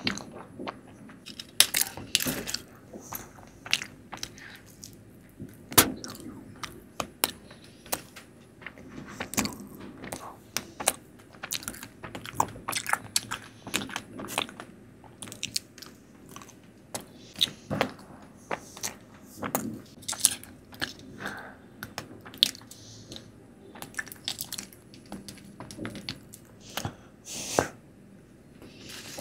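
Close-miked chewing and eating mouth sounds of someone eating Indian milk and cashew sweets: irregular wet smacks and clicks, several a second.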